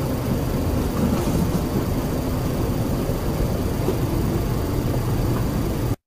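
Steady low rumbling background noise with no distinct events, cutting off abruptly near the end.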